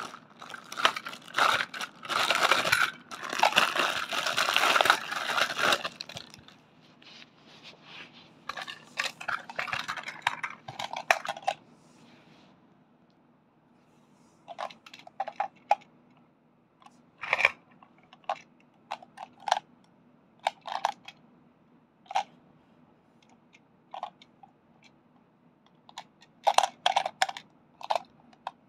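Clear plastic bag crinkling and rustling loudly as it is handled, dying down after about six seconds and stopping around twelve seconds in. After that come scattered light clicks and taps of the plastic Plarail toy train cars being handled and set down.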